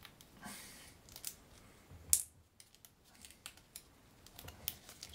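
Stiff card of a Foldscope sample stage being folded and tucked by hand: scattered light clicks and rustles, with one sharp snap about two seconds in.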